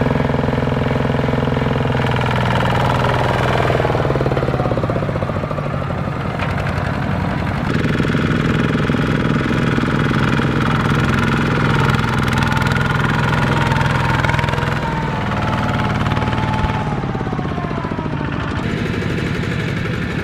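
Single-cylinder diesel engines of Kubota two-wheel walking tractors running under load as they drag trailers of rice through mud. The engine note changes abruptly a few times.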